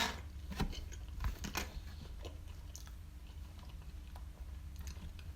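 Close-miked chewing of halal snack pack food (doner kebab meat, cheese and chips), with a run of short, sharp mouth clicks in the first two seconds and softer chewing after, over a steady low hum.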